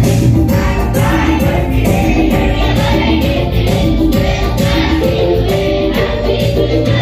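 Children's choir singing a Christmas song together into microphones, over musical accompaniment with a steady beat.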